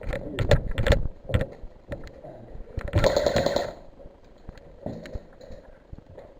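Airsoft guns firing: several sharp shots in the first second and a half, then a short rapid burst about three seconds in.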